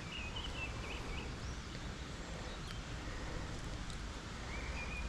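Birds chirping in short phrases about half a second in and again near the end, over a steady low outdoor background noise.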